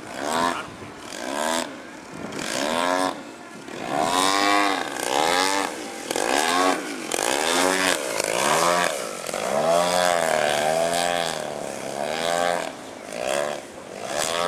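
Engine and propeller of a large radio-controlled aerobatic model airplane in flight, the engine note swinging up and down again and again as it climbs, dives and passes, loudest about two-thirds of the way through.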